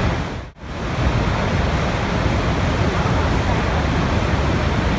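Continuous rushing water, a steady even noise. It drops out for an instant about half a second in and comes straight back.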